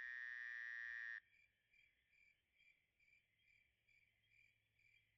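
A loud call on one steady pitch cuts off about a second in. After it comes faint, regular insect chirping, about two chirps a second, typical of crickets.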